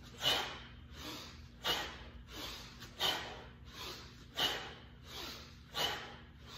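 A man breathing hard in rhythm through double kettlebell low swings. There are five sharp, forceful exhales at the top of the swings, about one every 1.4 seconds, and a softer inhale between each as the bells are hiked back.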